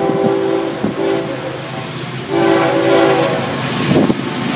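Freight locomotive's air horn blowing two blasts, the second starting about two seconds in. The approaching train's engine and wheel rumble grows louder near the end.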